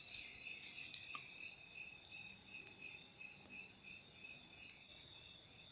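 Crickets and other insects chirping in a steady chorus, one of them in an even, rapid pulsing rhythm.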